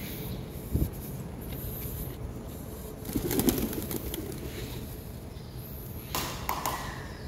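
Pigeons cooing, loudest about three seconds in, with a brief rush of noise near the end.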